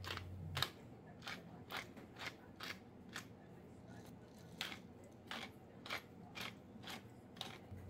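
A hand pepper mill grinding black peppercorns: a run of short grinding clicks, two or three a second, that stops briefly a little before the middle.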